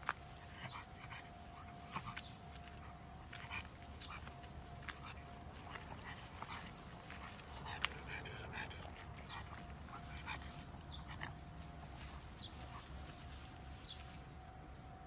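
A pug sniffing and breathing as it noses into grass and bushes, in many short, irregular snuffles, with grass and leaves rustling against it.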